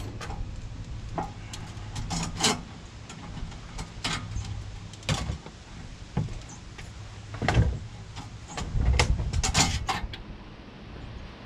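Hydraulic hoses being pulled through a tight passage in a tractor loader frame: irregular knocks, clunks and scrapes as the hose fittings catch and drag against the metal, over a steady low hum. The owner believes fittings inside the frame are what keep hanging the hoses up.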